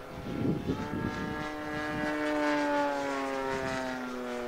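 A model P-51 Mustang's Laser 160 inline-twin four-stroke engine, running steadily in flight as the plane passes by. The engine note grows louder, then drops in pitch as it moves away. A brief low rumble sounds in the first second.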